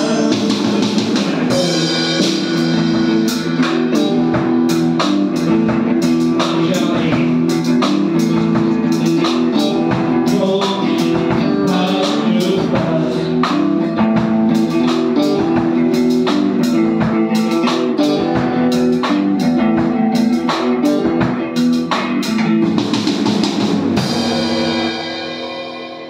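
A band playing an original instrumental rock piece, with electric guitar chords over a drum kit. About 24 seconds in it ends on a final chord that rings out and fades away.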